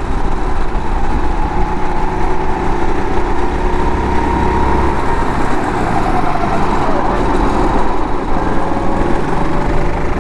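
Go-kart engine running on track, heard from the driver's seat. Its note is steady, then falls about two-thirds of the way through as the engine slows.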